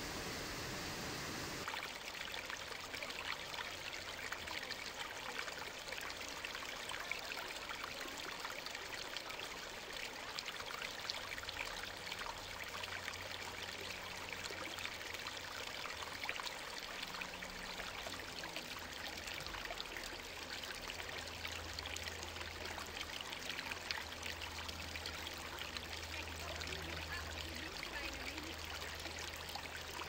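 Rushing water at a rocky pool below a small waterfall, giving a smooth, even hiss. About two seconds in it changes to shallow stream water babbling and gurgling over stones, a steady wash full of small splashes and bubbles.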